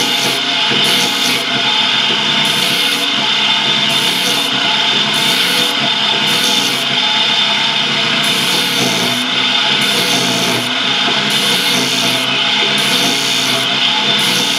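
Chevis bassoon cane gouging machine running with a steady whine, its blade shaving the cane in repeated rasping strokes, roughly one a second.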